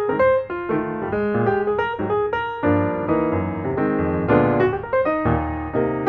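Background piano music: a melody over sustained chords.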